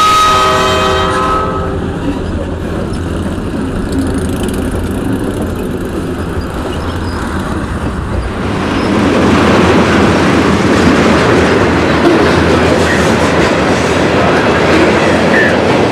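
A diesel freight locomotive's horn sounds a chord, which cuts off about a second in. Then the locomotives rumble past close by, and from about eight seconds in the freight cars roll by with the clatter of wheels over the rail joints, which grows louder.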